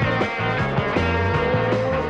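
Rock background music with a steady beat.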